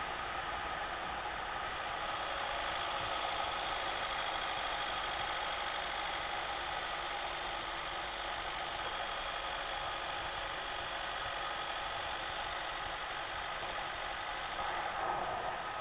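Steady cabin noise of a Citroën Nemo 1.3 Multijet turbodiesel van cruising in fifth gear: a constant hiss of tyres on a wet road over a low engine hum.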